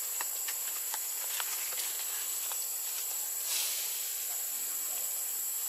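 Steady high-pitched forest insect drone, with scattered faint ticks and a brief swell of hiss about three and a half seconds in.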